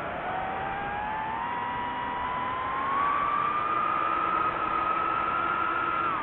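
DJI FPV drone's motors whining, the pitch climbing steadily over the first three seconds, holding high, then dropping suddenly near the end.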